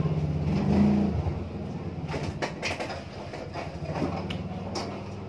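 A steady low mechanical hum, louder in about the first second, with a few sharp clicks of a metal fork against a plate a couple of seconds in and again near the end.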